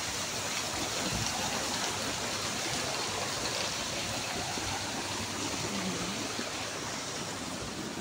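Water running steadily in a small decorative fountain, a continuous rushing hiss.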